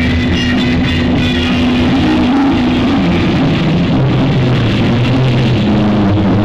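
Live rock band through a concert PA, an electric guitar to the fore holding long sustained notes. The recording is heavily distorted by a faulty camera microphone.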